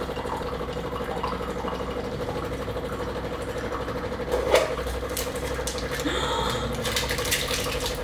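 DeLonghi La Specialista Prestigio espresso machine's pump buzzing steadily as it runs its first rinse cycle, pushing water out through the spout. A single sharp knock comes about halfway through, and the water hisses more loudly over the last couple of seconds.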